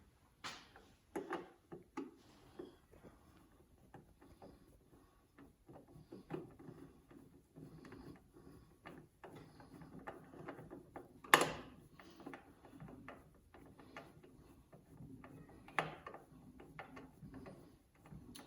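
Faint clicks, scrapes and rattles of a screwdriver and metal parts as a screw is driven into the stand mixer's housing, with one sharp knock partway through and a lighter one a few seconds later.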